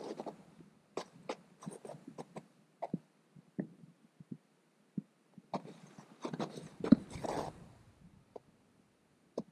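Snow crunching under footsteps, with scattered light clicks and knocks of a camera being handled; one sharper knock about seven seconds in.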